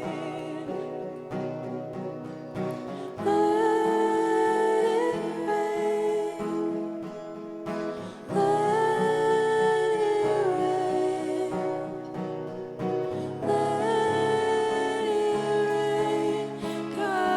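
Worship band playing live: singers hold long notes over acoustic guitar, keys and bass. The singing swells in three phrases about five seconds apart, with quieter playing between them.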